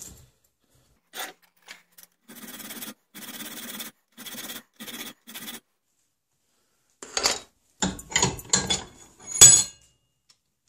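Hand file rasping on a small steel rear sight clamped in a bench vise, in about six short strokes, as the sight is filed narrower from the outside. Then a run of sharp metallic clanks and knocks, the loudest near the end.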